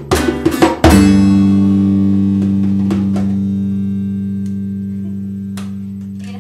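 Final chord of an acoustic song on acoustic guitar and bass guitar with a djembe: a few last strums and hits, then the closing chord is struck about a second in and left to ring, fading slowly.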